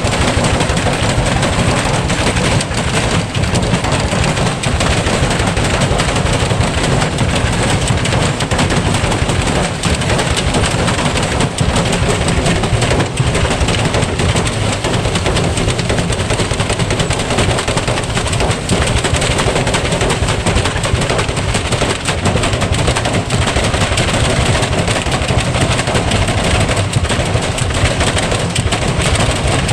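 Electrolux front-load washing machine spinning with a brick inside the drum, making a continuous, loud, rapid hammering clatter as the brick is flung around.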